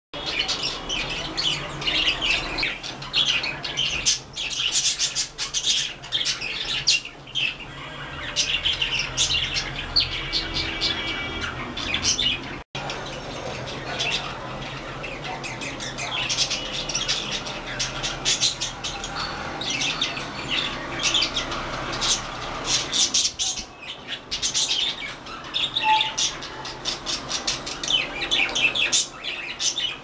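Budgerigars chattering: rapid short chirps and squawks run together in a continuous warble, with a momentary dropout about a third of the way in.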